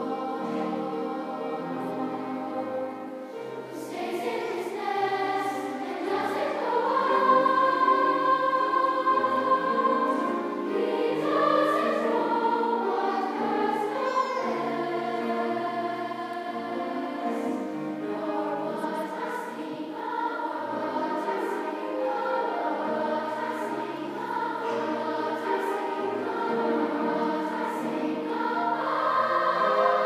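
Large children's choir singing in parts, with grand piano accompaniment; the sound swells louder near the end.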